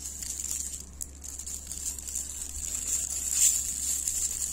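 Light rustling and pattering as salt is tipped from a small plastic bag onto raw chicken strips in a glass bowl, swelling about three and a half seconds in.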